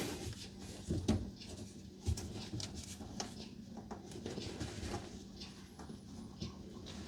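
Scattered small knocks, clicks and rustles of hands working a disconnected faucet supply line and a towel in the cabinet under a kitchen sink, with a faint steady hum beneath.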